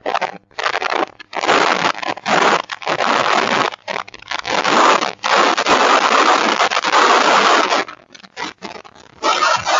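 Strong wind buffeting the microphone in irregular gusts, with short lulls between them. The long, loud stretch falls in the middle.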